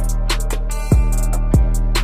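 Music with a steady beat: deep, booming bass-drum hits that slide down in pitch, about twice, over quick ticking hi-hats and a steady bass line.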